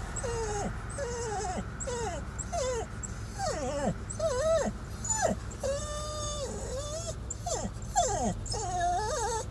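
Small dog whining and whimpering in a string of short, wavering high cries, one held longer about six seconds in, excited at the sight of horses.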